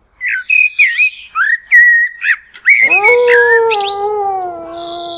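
Intro logo sound effect: a run of quick whistled chirps and pitch glides with a few sharp clicks, then, about three seconds in, one long howl-like call that slowly falls in pitch and fades out.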